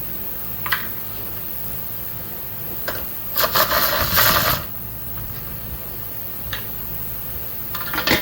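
Socket ratchet clicking in a fast run for about a second as a 10 mm bolt is loosened, with single metal clicks of tools before and after.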